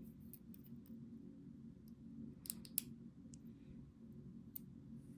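Light clicks and taps of small lock pins and springs being picked out and handled as a pin-tumbler lock is taken apart, the two sharpest clicks close together about halfway through, over a steady low hum.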